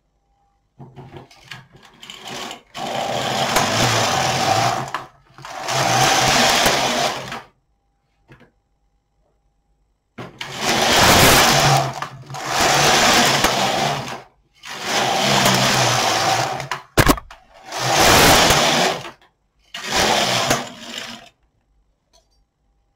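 Knitting machine carriage being pushed back and forth across the needle bed, about eight passes of roughly two seconds each with a pause midway, knitting rows of waste yarn. A sharp click comes about two-thirds of the way through.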